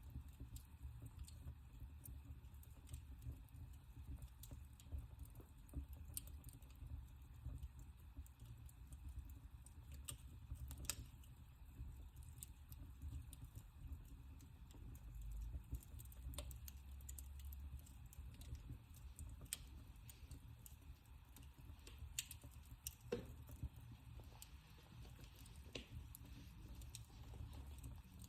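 Wood fire burning in a fireplace, crackling faintly with scattered sharp pops and ticks over a low steady rumble.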